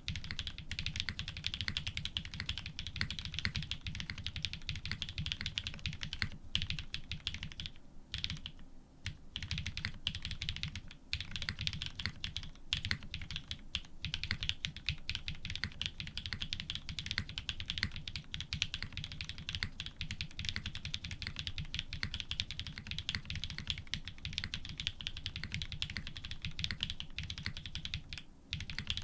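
Fast, continuous typing on a custom F1-8x mechanical keyboard with lubed Cream-stem switches in Cherry housings, an FR4 plate and GMK keycaps, pausing briefly a few times.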